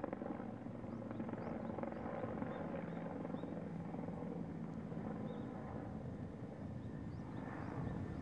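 A steady low engine drone with a held hum, and a few faint short high chirps over it.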